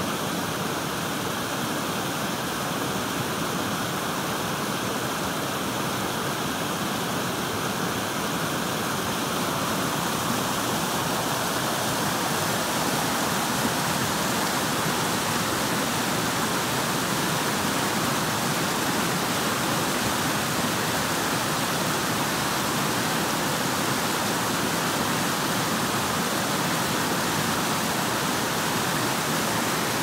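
Fast, shallow woodland beck rushing and cascading over mossy boulders: a steady, unbroken rush of white water. It grows a little louder and fuller about a third of the way through.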